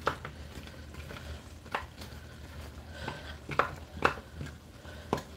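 A cooking spoon stirring oxtails with onions and tomatoes in a stainless steel pan: a few scattered clinks and scrapes against the pan over a faint steady low hum.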